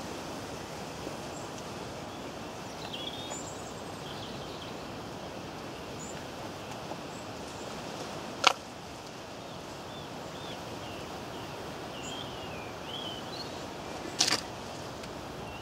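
Steady outdoor background noise by a pond, with birds chirping now and then. Two sharp knocks or clicks, one about halfway through and one near the end, are the loudest sounds.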